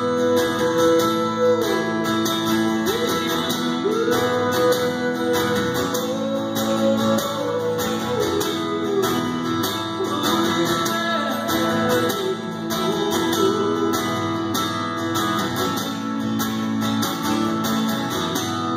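Acoustic guitar strummed steadily in a live solo performance, with a voice holding long wordless notes over it.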